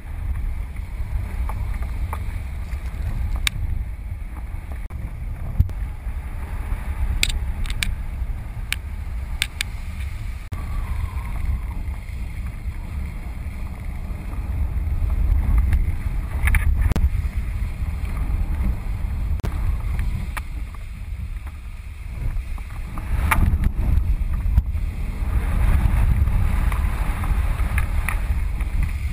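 Wind buffeting the microphone of a kite-borne camera: a loud, uneven low rumble that swells and eases, with scattered sharp clicks.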